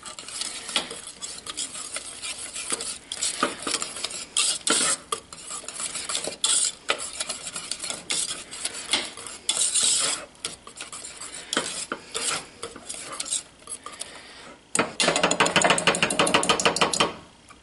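Wire whisk stirring grated cheese into a thick white sauce in a stainless steel saucepan, its wires scraping and clinking against the pan in uneven strokes. Near the end it speeds up into fast, even whisking for about two seconds, then stops.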